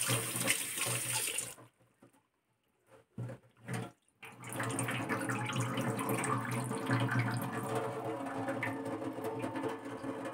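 Tap water running into a stainless-steel sink as raw fish pieces are rinsed by hand in a wire strainer. The flow stops about a second and a half in, two short splashes follow, and the running water starts again at about four seconds.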